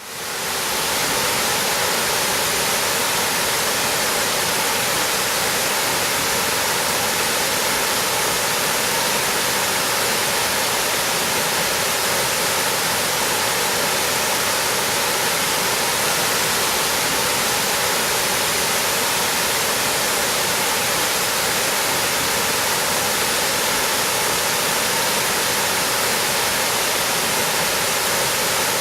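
Steady rushing roar of a waterfall, a seven-tiered cascade, fading in over the first second.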